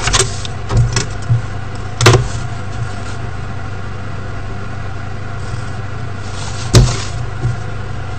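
A few sharp knocks and taps as a plastic ruler and pencil are handled and set against paper on a wooden desk, the loudest about two seconds in and near the end, over a steady low hum.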